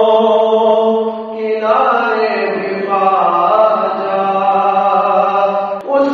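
Chanted singing in long held notes that slide from one pitch to the next, over a steady low sustained tone, with a brief break near the end.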